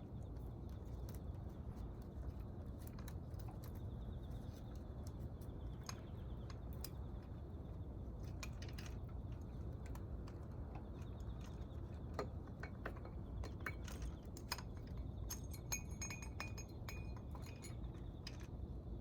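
Light, scattered metallic clicks and clinks of hand tools and engine parts being handled, over a steady low hum; a cluster of small jingling clinks comes near the end.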